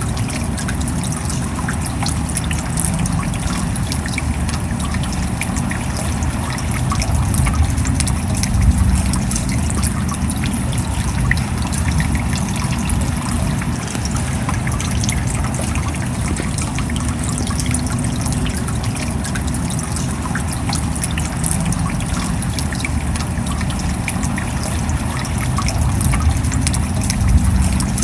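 Steady rain falling: a continuous rush of noise, heaviest low down, with many small drop ticks through it, swelling slightly a couple of times.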